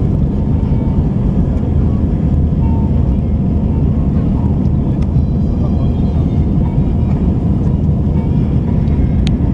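Airliner taking off: the loud, steady low rumble of its engines and rushing air, with a small click near the end.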